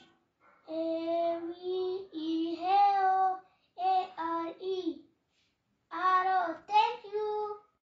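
A young boy's voice chanting aloud from his book in a sing-song, drawn-out way, in four phrases with short pauses between.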